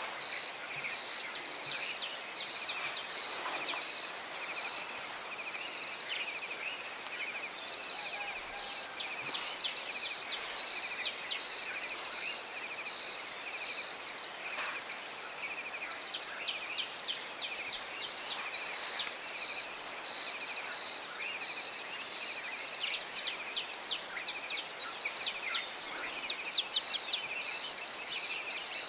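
A steady, pulsing chorus of insects with birds chirping repeatedly over it, in a natural dawn ambience.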